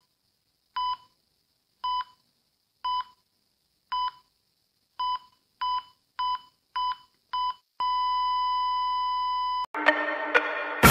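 Electronic beeps, one a second at first, then quickening, ending in a long unbroken beep of about two seconds. A lower buzzing tone with a few clicks follows near the end.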